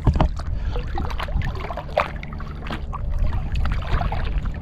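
Water splashing and sloshing in irregular bursts as swim fins kick beneath a one-person pontoon boat, over a low rumble with a faint steady hum underneath.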